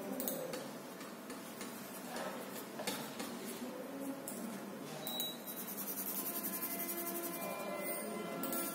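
Pencil scratching on paper while sketching. In the second half it turns into rapid, even back-and-forth hatching strokes as the hair is shaded in.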